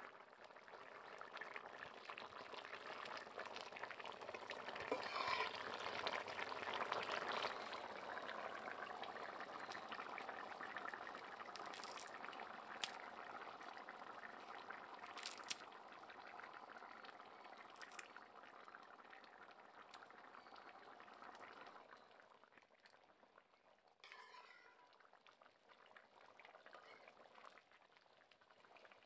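Curry bubbling at a rolling boil in a wok, a dense crackling bubbling that eases off and grows quieter in the last few seconds. A few sharp clicks sound in the middle.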